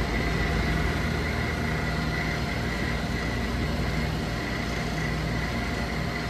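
Walk-in cooler condensing unit running: a steady mechanical hum with a faint high whine.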